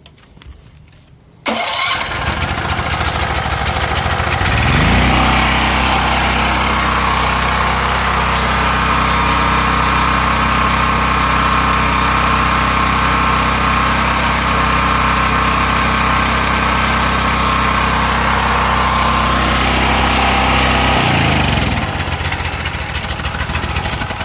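DuroMax XP4400E portable generator's single-cylinder gas engine being started on choke in the cold. It catches suddenly about a second and a half in, runs unevenly for a few seconds, then rises in pitch to a steady run. Near the end the pitch drops and the sound dies away.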